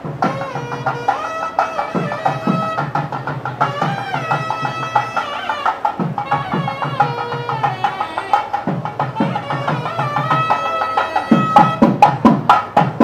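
Traditional South Indian ceremonial music: a reed wind instrument plays a melody of long, bending notes over hand-drum strokes. The drumming grows louder near the end.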